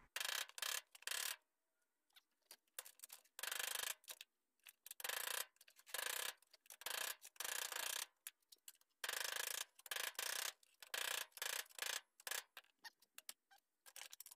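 Small hammer tapping over and over on a VW Beetle running board, knocking its ribbed rubber mat down so it seats flat on the board. The taps come in irregular runs with short pauses, including a longer gap about two seconds in.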